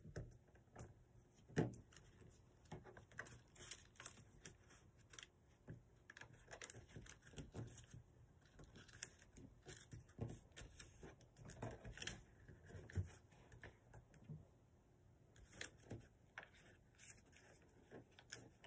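Paper being folded and creased by hand: faint, scattered crinkles and small taps, coming irregularly.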